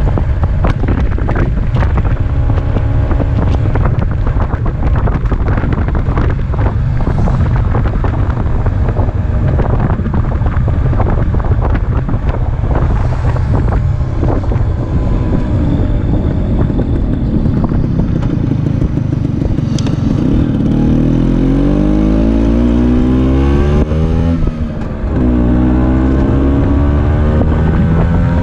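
Vespa PX80 scooter's two-stroke engine, fitted with a DR136 Krüger cylinder kit, running while riding, under heavy wind buffeting on the microphone. In the second half its pitch climbs as it accelerates, drops sharply at a gear change near the end, and climbs again.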